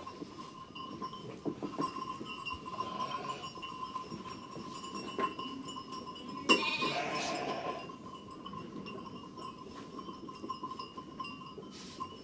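Sheep bleating once, about six and a half seconds in, over the shuffling and small clicks of the flock. A faint steady high tone runs underneath.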